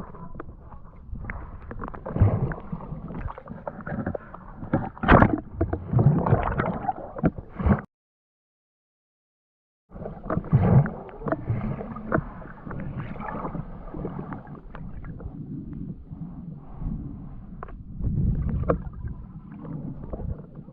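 Water sloshing and gurgling with scattered knocks and clatter, cut by about two seconds of dead silence near the middle.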